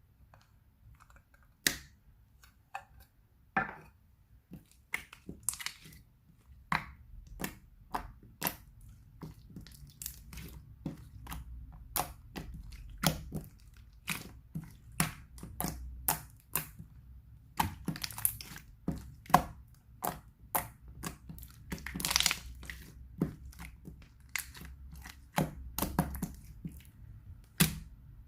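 Water slime being squeezed and stretched by hand: irregular sharp crackling pops and clicks, a few of them drawn out into longer crinkly crackles.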